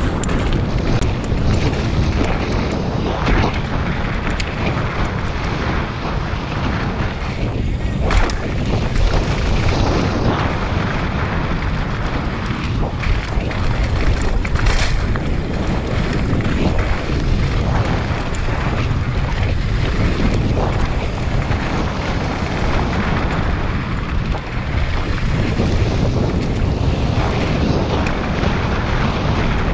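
Downhill mountain bike ridden fast over rock and gravel: heavy wind noise buffeting the microphone over the tyres rumbling on the trail and the bike rattling, with sharp knocks from impacts now and then.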